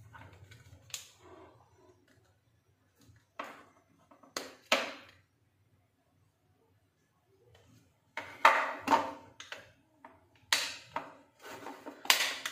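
Sharp plastic clicks and snaps as a small tester screwdriver pries apart the glued plastic body of an LED T-bulb along its seam, breaking the glue. A few separate snaps come in the first half, then a quiet stretch, then a quicker run of louder clicks near the end.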